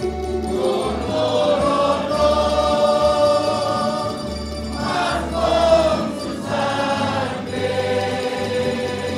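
Church choir singing a hymn with instrumental accompaniment and a steady bass line.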